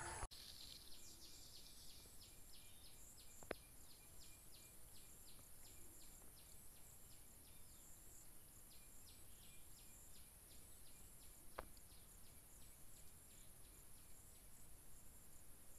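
Faint outdoor ambience: an insect chirping in a steady rhythm of about four chirps a second over a constant high hiss, with two brief faint clicks.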